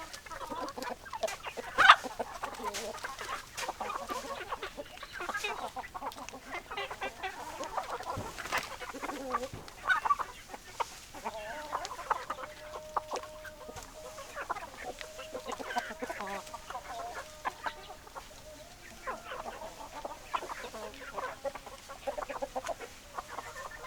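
A flock of chickens, hens clucking and calling in a steady jumble of short calls, with one sharp, louder sound about two seconds in.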